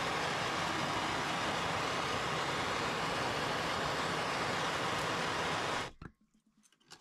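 Gas soldering torch burning with a steady hiss while heating a copper fitting to sweat-solder it, shut off suddenly about six seconds in. A couple of light clicks of metal follow.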